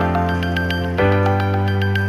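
Background music: calm, sustained chords with light bell-like notes, the chord changing about a second in.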